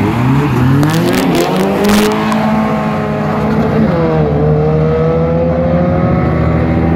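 A Honda Civic hatchback and an Acura Integra launching side by side in a street drag race, their four-cylinder engines revving up hard with the pitch climbing, then dropping at shifts about two and four seconds in. A few sharp cracks come during the launch.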